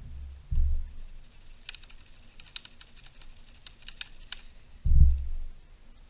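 Handling noise from a Stihl MS180 chainsaw being tipped and shaken to drain the last fuel from its tank: two low thumps, about half a second in and about five seconds in, with a run of light clicks and rattles between them.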